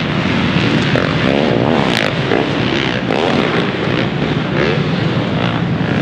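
Several supercross motorcycles running at once, their engines revving up and down with overlapping notes that rise and fall as the riders work through the track.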